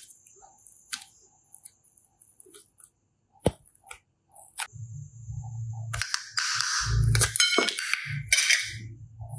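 Hands working slime and clay: scattered sharp clicks and snaps, then from about six seconds in a few seconds of dense crackling and crunching with low thumps.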